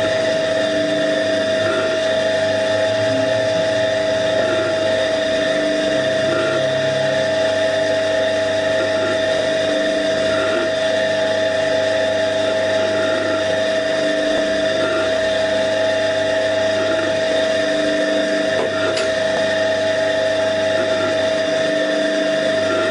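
Vacuum pump running steadily on the vacuum chamber, a constant whine with a faint pulse repeating just under every two seconds. A single light click sounds late on.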